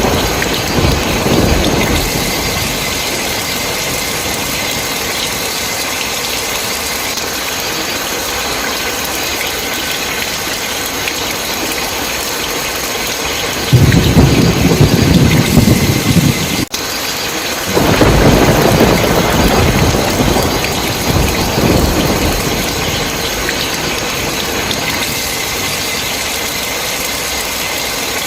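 Steady heavy rain with thunder rolling through it: a low rumble at the start, a louder one about halfway that breaks off suddenly, and another soon after that fades out slowly.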